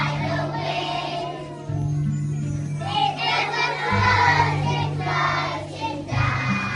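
A group of young children singing together over music accompaniment, whose bass line steps from note to note every second or two.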